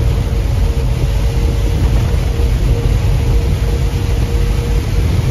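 Semi truck driving on a wet highway, heard inside the cab: a steady low engine and road rumble with a faint steady tone above it and a constant hiss of tyres on the wet road.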